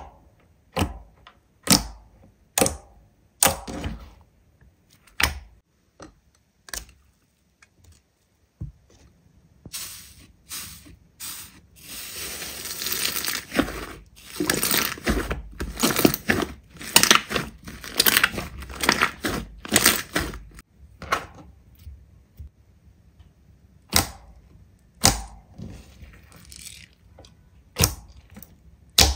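Slime being squeezed and stretched by hand, giving sticky pops and clicks. About ten seconds in, a dense run of crackling sets in and lasts some ten seconds, followed by a few more single pops.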